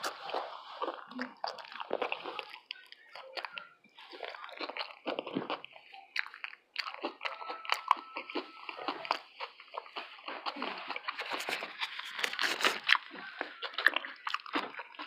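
Close-up eating sounds: crunchy hard taco shells being bitten and chewed, with many sharp crackles and wet, squishy mouth noises from the soft fillings of guacamole and sour cream.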